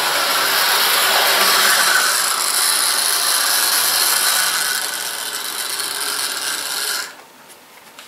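00 gauge model locomotive running on the track with a rake of coaches: its geared motor and wheels make a steady mechanical whir that cuts off suddenly about seven seconds in, as the train stops.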